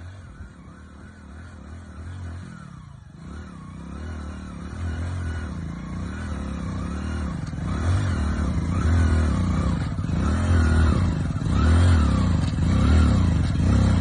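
A vehicle-like mechanical sound, growing steadily louder, with a tone that rises and falls about once a second.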